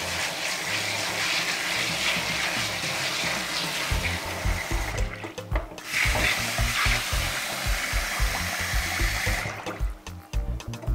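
Kitchen tap running into a bowl of pigeon peas in a stainless-steel sink as they are washed a second time, a steady splashing hiss. It breaks briefly about five seconds in, then runs again until the tap is shut off near the end.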